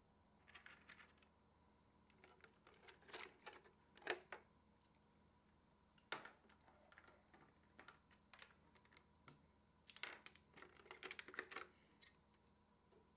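Clear hard-plastic display case and tray being handled: scattered light clicks and taps of plastic, in short irregular clusters, the loudest about four seconds in.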